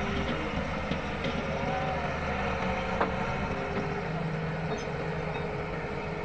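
Old Sumitomo hydraulic excavator's diesel engine running steadily under load while the boom lifts and swings, with whining tones from the hydraulics that rise and fall. One sharp knock about three seconds in.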